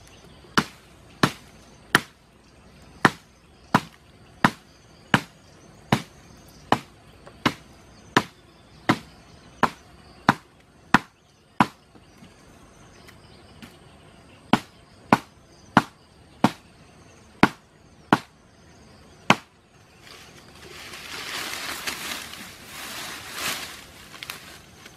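A blade chopping at wood: sharp, regular knocks about every three-quarters of a second, with a short pause midway. For the last few seconds grass and brush rustle.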